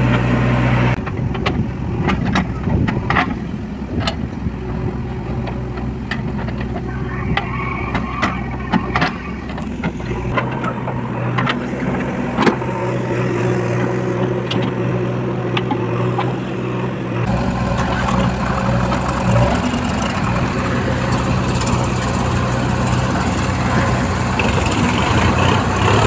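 Heavy diesel engines running steadily, from a JCB 3DX backhoe loader and a Swaraj 735 FE tractor. Scattered sharp knocks and clatter, most in the first ten seconds, fit the backhoe bucket digging into stony soil.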